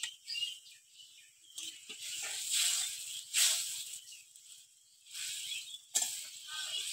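Fried small fish (mourala) tipped into a curry in a steel pan, then a metal spatula stirring and scraping in the pan. Rattling and hissing come twice, the longer stretch about two seconds in and a shorter one near the end.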